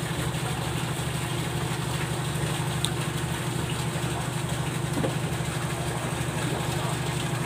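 Engine idling steadily with a rapid, even throb.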